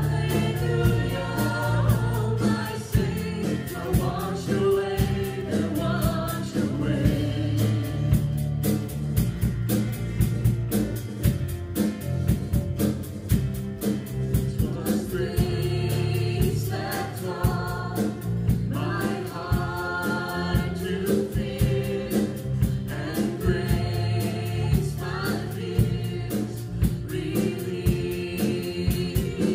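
Live church worship band: several voices singing a worship song together over drums, bass and acoustic guitar.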